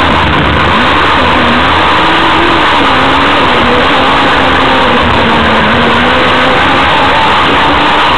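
Onboard sound of a vehicle's engine running as it drives, its pitch rising and falling gently, under a loud steady hiss of wind and road noise.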